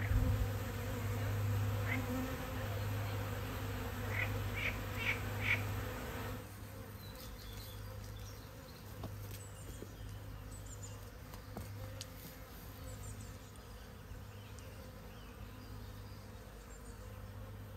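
Honeybee swarm buzzing steadily around a skep, with a few short high chirps about four to five seconds in. The buzz drops to a fainter level after about six seconds.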